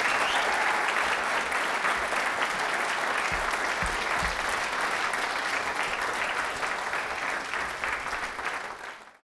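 Theatre audience applauding, a dense steady clapping that fades away and cuts off near the end, with a few low thuds about three to four seconds in.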